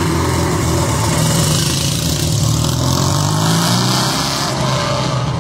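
Two vintage motorcycles accelerating away from a standing start, their engines pulling hard and the low engine note thinning out after about three and a half seconds as they ride off.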